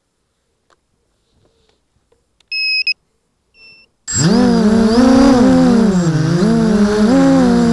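Two short electronic beeps, then about four seconds in the quadcopter's brushless motors and 6-inch props start up and run loudly, the pitch rising and falling as the throttle changes.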